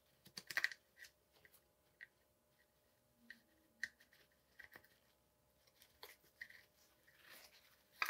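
Faint, irregular clicking and scratching of a pick wrapped in a paper towel being spun around inside a Race Face Next SL crank arm's threaded bore, scraping grease and grime out of the threads.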